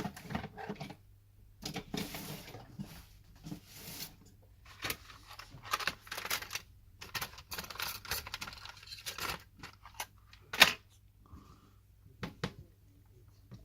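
Irregular small clicks, taps and scratchy scrapes of a smartphone's plastic parts being handled, pried and fitted during disassembly, with one sharp, louder click about ten and a half seconds in.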